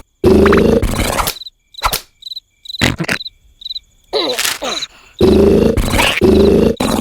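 A person snoring loudly in long, rattling snores, two big ones with a softer breath between them. A cricket chirps at an even pace underneath, plain in the quiet between the snores.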